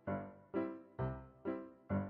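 Background piano music: single notes or chords struck about twice a second, each fading away before the next.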